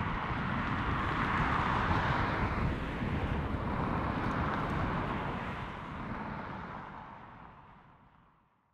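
Jet noise from a Qantas Airbus A380's four Rolls-Royce Trent 900 engines at climb power after takeoff: a deep rumble under a steady rush. It fades away over the last few seconds.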